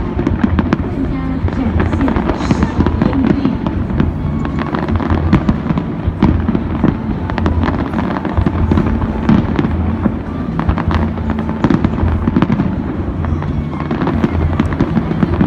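Fireworks display: a dense, continuous run of sharp bangs and crackles from bursting shells, over loud music with a deep bass line.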